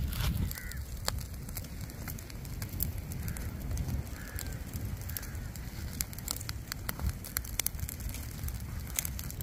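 Open fire burning hard, crackling with frequent sharp pops over a steady low rumble. Faint short bird calls come through a few times.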